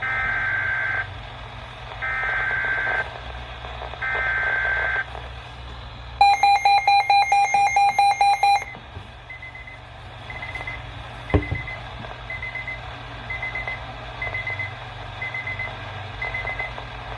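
Emergency alert signal over a radio feed: three one-second bursts of the screeching digital alert data header, then a loud pulsing alert tone for a couple of seconds, then short high beeps about once a second until the voice message resumes. A single click sounds midway through the beeps.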